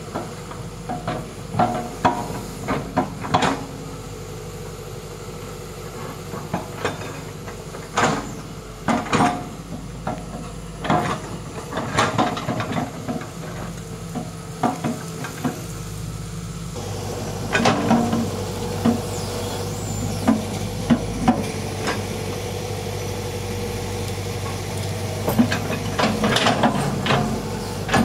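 Hitachi hydraulic excavator working: its diesel engine running steadily under load while the bucket digs and dumps soil, with many sharp clanks and knocks of steel bucket, earth and stones. About halfway through the engine note shifts lower and gets a little louder.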